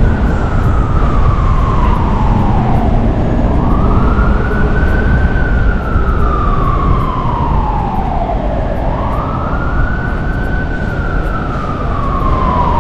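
Emergency vehicle siren sounding a slow wail: the tone climbs quickly, then slides slowly down, the rise and fall repeating about every five seconds. A steady low rumble runs underneath.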